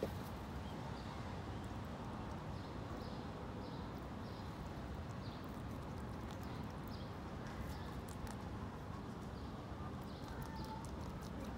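A young gull pecking at food on a tray, its beak tapping now and then against the tray and ledge, over a steady low rumble of wind on the microphone.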